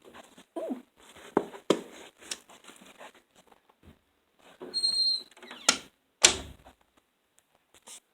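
A door being opened and shut, with scattered knocks and handling clatter and two loud sharp clacks about three-quarters of the way through.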